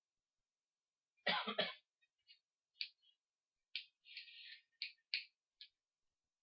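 A person clearing their throat: a quick run of three rough pulses about a second in, followed by several short hissing sounds.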